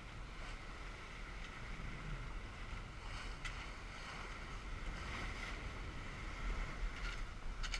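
Wind buffeting the microphone over the rush of water along the hull of a Tanzer 22 sailboat under sail on a beam reach through choppy waves. A couple of brief sharper sounds come through, about halfway and near the end.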